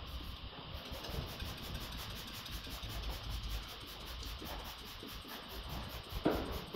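Rubbing and scuffing over a low steady hum, with one short, louder spritz of a hand-pump spray bottle near the end as water is misted onto the primed panels.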